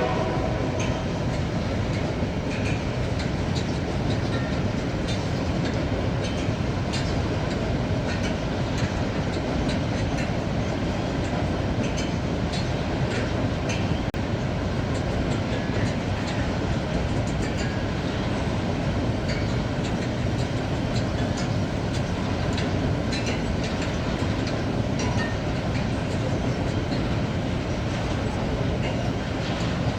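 Train rolling steadily along the rails: a constant running noise with scattered light clicks and clacks from the wheels.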